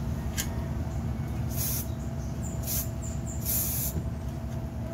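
Aerosol spray-paint can hissing in three short bursts about a second apart, the last about half a second long, over a steady low rumble.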